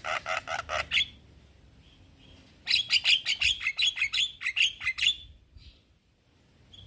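Javan myna calling: a quick run of harsh chattering notes, then after a short pause a longer, faster rapid string of notes that breaks off into quiet.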